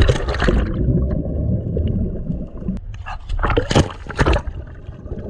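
Water splashing hard against a camera at the surface, in two loud bursts about three seconds apart, with a muffled stretch between them.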